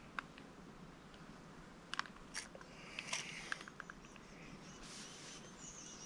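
Close handling noise: a scattering of light clicks and rustles as fingers work at a chest-mounted camera on its harness strap.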